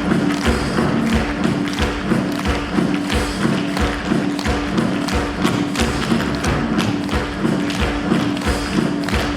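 Curtain-call music from a musical's live band, with a held note and a steady thumping beat.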